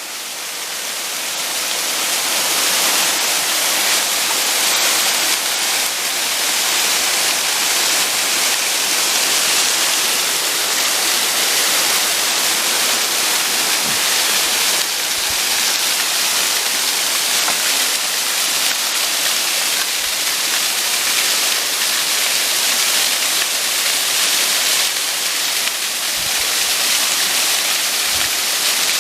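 Mountain waterfall and stream water rushing in a steady, dense roar. It grows louder over the first few seconds as it comes closer, then holds steady.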